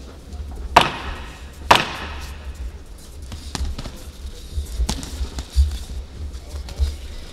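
Two sharp smacks about a second apart, followed by several lighter knocks, over a continuous low thudding.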